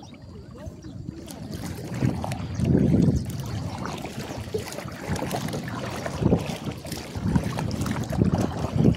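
Kayak moving through calm water, with splashes from paddle strokes and wind rumbling on the microphone in irregular gusts.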